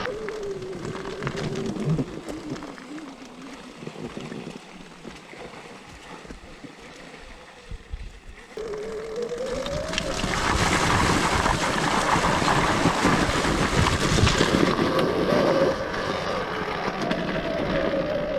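Electric enduro motorcycle riding through a shallow rocky river: the motor's whine rises and falls with the throttle. Water splashes around the wheels, loudest from about ten to fifteen seconds in.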